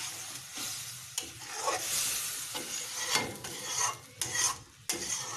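Hot spice masala sizzling in a metal kadai, fading over the first second, with steam coming off the pan, then a spatula scraping and stirring it in a run of short strokes.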